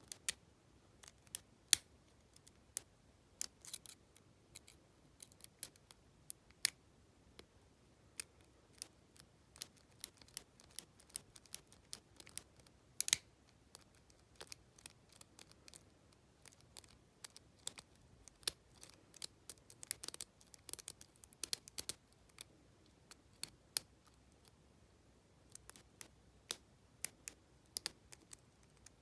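Lock pick working the pins inside an Abus T65AL/40 padlock: irregular sharp metallic clicks and scratches, some in quick clusters, as pins catch and drop back.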